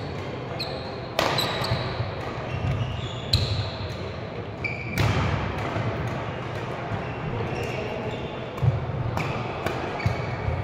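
Badminton doubles rally: sharp racket strikes on the shuttlecock every second or two, with short squeaks of shoes on the court floor between them.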